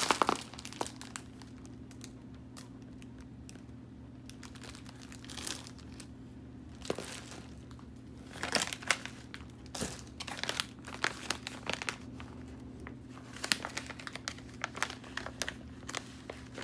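A clear plastic bag of wrapped candies crinkling and rustling as it is handled and pulled from a cardboard shipping box. The crinkles come in irregular clusters, sparse at first and busier in the second half, over a faint steady low hum.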